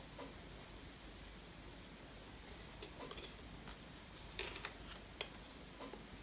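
Faint scraping of a knife cutting down through a baked sponge cake's crust, in a few short strokes, with a single sharp click a little after five seconds in.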